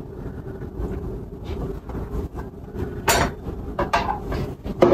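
Kitchen utensil handling: a table knife scraping a raw egg out of a small glass dish into a mixing bowl, with a sharp clink about three seconds in and a few lighter taps soon after. A steady low hum runs underneath.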